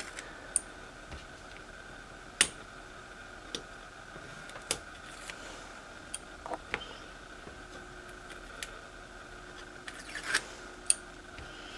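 Scattered small clicks and taps of metal tweezers and a weeding tool picking leftover vinyl stencil pieces off a painted wooden round, with two louder clicks, one a couple of seconds in and one near the end.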